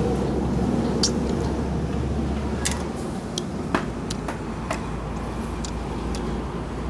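A man eating by hand, chewing and smacking his lips over a mouthful of mutton: a few scattered sharp clicks over a steady low background hum.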